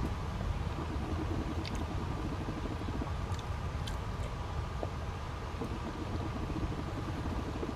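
Steady low rumble of background noise, with a few faint short clicks between about two and four seconds in.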